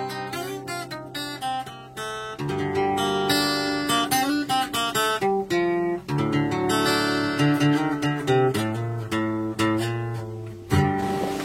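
Acoustic guitar music, plucked and strummed notes.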